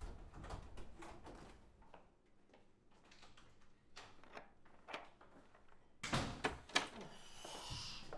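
Interior door being opened and shut: doorknob and latch clicks with light footsteps, and a louder cluster of clicks and a knock near the end as a door latches.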